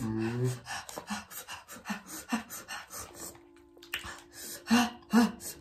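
People panting and huffing through open mouths against the burn of very hot chilli wings: a quick run of short, breathy breaths, with a few louder gasps near the end.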